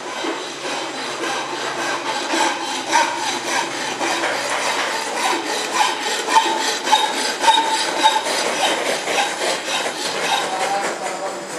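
Hand file rasping on metal in repeated back-and-forth strokes, some strokes with a slight ringing squeal.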